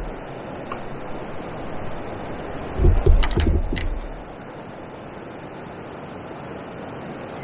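Steady rush of weir water and wind. About three seconds in, a short cluster of low knocks and a few sharp clicks from handling.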